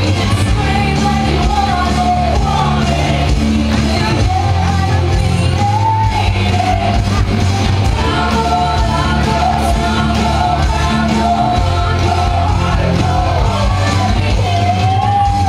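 Loud music with a singing voice over a heavy, sustained bass line.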